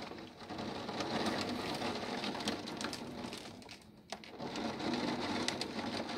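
Heavy thunderstorm rain pouring down, with the sharp ticks of single drops hitting nearby surfaces. The sound dips briefly about four seconds in, then comes back.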